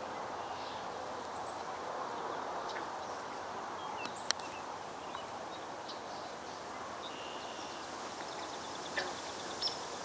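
Outdoor pond ambience: a steady background hiss with faint, scattered bird calls, and a single sharp click about four seconds in.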